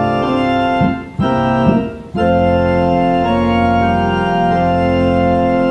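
Organ playing sustained chords, with two short breaks between chords about one and two seconds in, then a long final chord held: the close of the organ prelude.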